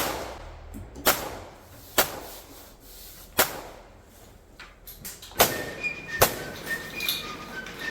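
Sharp metallic clicks and knocks, about seven, spaced roughly a second apart, of an M1911 pistol and its magazines being handled and set down.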